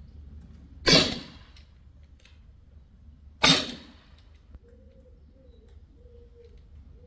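Sig Sauer MCX Rattler Canebrake CO2 .177 air rifle fired twice, about two and a half seconds apart, each shot a sharp crack that dies away quickly.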